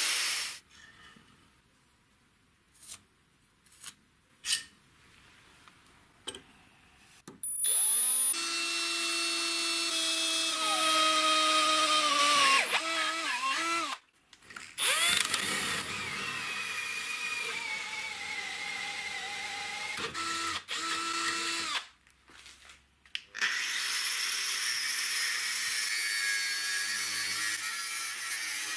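An angle grinder cutting and grinding the steel spindle of an old wheel-bearing hub. It runs in long loud stretches, its pitch dipping and rising as the disc is loaded. Near the start the tool stops for several seconds, with only a few sharp knocks.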